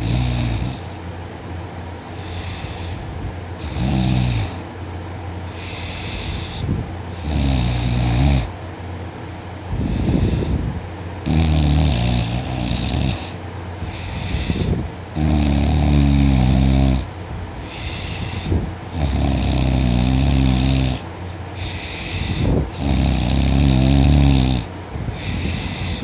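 A sleeping woman snoring very loudly: deep, growling snores with a breathy hiss, one every two to four seconds. The snores grow longer and louder in the second half.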